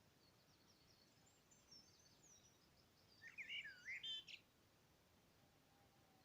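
Songbirds singing faintly: scattered high chirps, then a brighter phrase of quick rising and falling notes about three to four seconds in.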